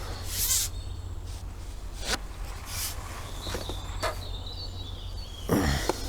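Handling noise while a pole-hooked fish is played on the elastic: a steady low rumble with a brief hiss about half a second in, scattered clicks and rustles, and a louder short rustle near the end.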